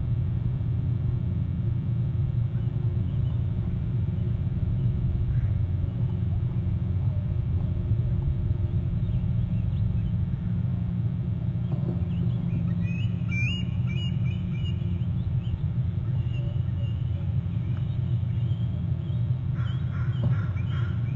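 Faint, high squealing bird calls, the 'squees' of a nest cam, first about twelve seconds in and again near the end, over a steady low rumble on the camera microphone.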